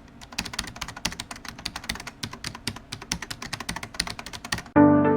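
Rapid clicking of keys typed on a computer keyboard, several keystrokes a second. Near the end the typing stops and music with held pitched notes comes in, louder.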